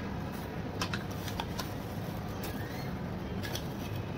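A metal spoon clicking against a ceramic bowl several times as sugar is scooped out and tipped into the pan, over the steady low noise of a lit gas burner and simmering juice.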